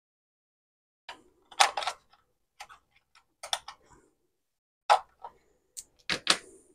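AA batteries being pulled out of a plastic multimeter's battery compartment: a string of sharp clicks and knocks as the cells come free of the spring contacts and hit the plastic case and each other.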